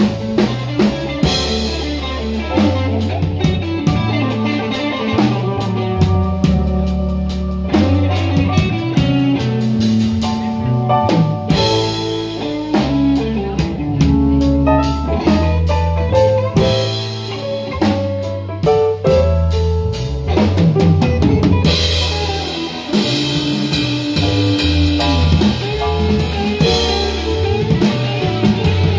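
Live blues band playing a blues in A, with drum kit (snare, rimshots and bass drum), bass and electric guitar.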